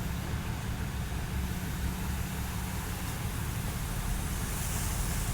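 Steady low rumble of an idling vehicle engine, with an even background hiss of street noise.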